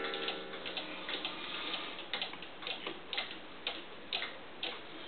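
Mechanical one-day cuckoo clock movement ticking steadily, about two ticks a second.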